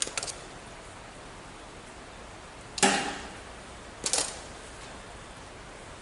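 Sharp metallic clicks and clanks from wire being stripped and handled at a steel electrical box. A few small clicks at the start, a loud knock with a brief metallic ring a little before the middle, and another quick cluster of clicks about a second later.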